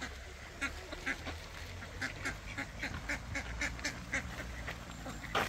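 Domestic ducks quacking in a run of short calls, several a second.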